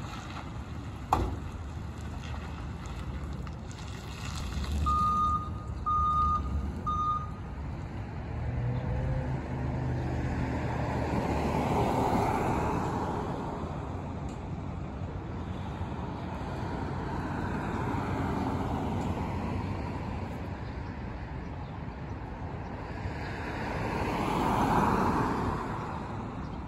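Ambulance's reversing alarm beeping three times, about a second apart, over its engine running; later the sound of passing traffic swells and fades twice.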